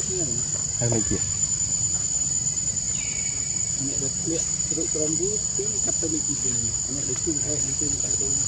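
Insects shrilling in a steady, high-pitched drone on one unchanging tone, with a short falling chirp about three seconds in.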